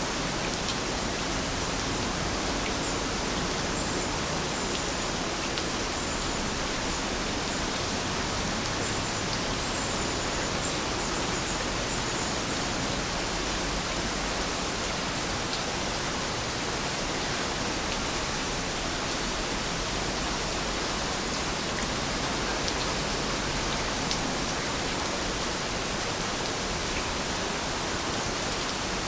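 Steady rain falling, an even hiss with no single drops standing out. A few faint high chirps sound in the first half.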